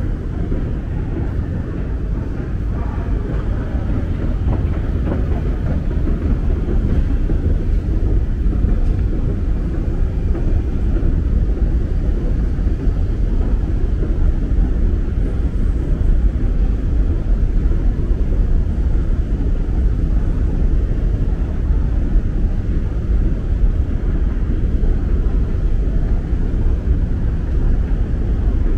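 Steady low rumble of a deep London Underground station while riding an escalator up: escalator machinery and station ventilation. It grows slightly louder about six seconds in.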